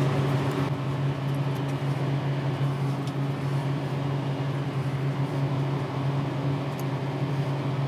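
Steady low mechanical hum, with a few faint small clicks as a plastic head comb is fitted onto a hard drive's head stack.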